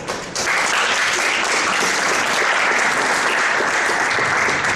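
Audience applauding in a hall, the clapping starting about a third of a second in and holding steady.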